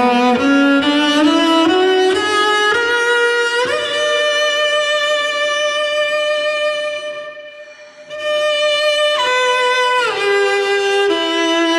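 Solo cello bowing a line that climbs step by step into its high register and settles on a long held note. The note fades out about two-thirds of the way through, then a new phrase starts and steps back down.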